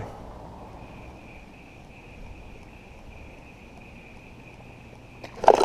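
A faint insect trill, one steady high-pitched tone that holds for several seconds over a low outdoor background hiss.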